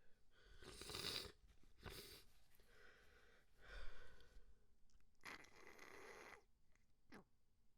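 Faint sniffling and noisy breaths through a runny, congested nose, in several separate short breathy bursts.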